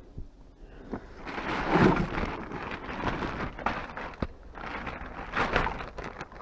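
Household items and scrap being handled and moved about: uneven rustling and clattering with a few sharp knocks.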